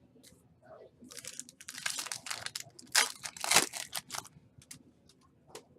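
Foil wrapper of a trading card pack being torn open and crinkled, a run of crackling rips from about a second in to just past four seconds, loudest near the middle.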